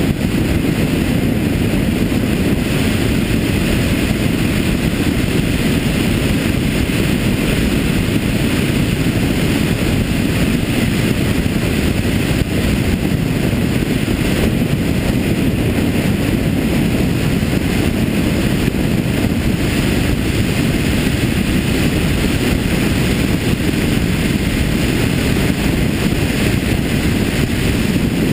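Motorcycle cruising at a steady speed: a constant low rumble of wind on the microphone mixed with engine and road noise, with no change in pitch or level.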